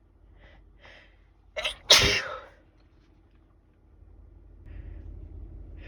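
A person sneezing: a couple of short catching breaths, then one loud sneeze in two quick parts just under two seconds in. Near the end comes a long noisy in-breath.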